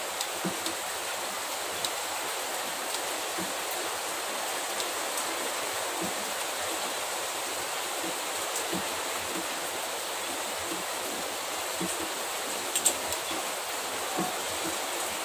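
Steady even hiss with faint scattered clicks, and a sharper pair of clicks about three-quarters of the way through.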